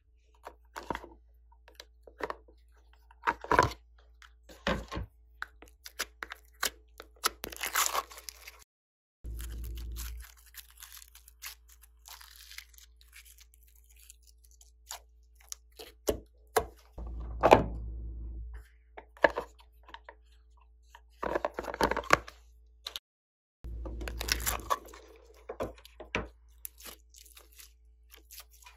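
Glossy slime being stretched, squeezed and pressed by hand, giving irregular sticky clicks, pops and crackles that come in clusters with short quiet gaps.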